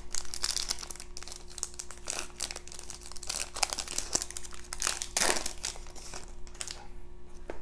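Shiny foil wrapper of a 2020-21 Panini Select basketball card pack being torn open and peeled back by hand: irregular crinkling and crackling rustle throughout.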